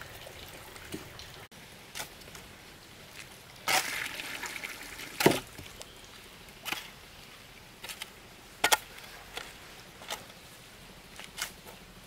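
Hoe chopping and scraping through a pile of wet cement-and-sand mortar: irregular strokes about once a second, a long scrape about four seconds in and the loudest slap just after five seconds. At the start, a faint trickle of water.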